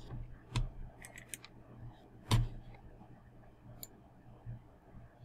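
A few sharp computer mouse clicks and scroll-wheel ticks, the loudest about two and a half seconds in, over a faint low room hum.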